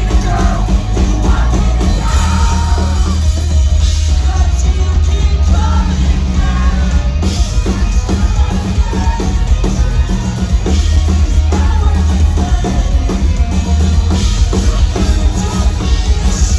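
Live post-hardcore band playing loud and dense, with distorted guitars, heavy bass, busy drums and high sung vocals, as heard from the audience.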